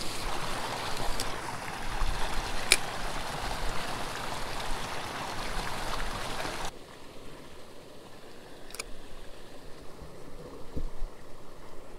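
Steady rush of running water at a small pond's spillway. About seven seconds in it drops suddenly to a fainter rush, and a few sharp clicks come through it.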